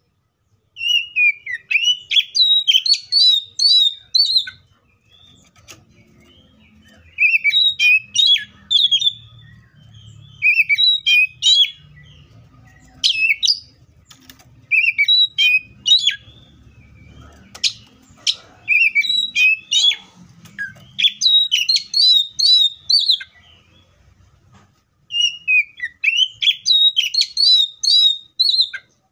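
Oriental magpie-robin singing: loud phrases of quick whistles and chirps, each lasting one to four seconds, repeated with short pauses between them.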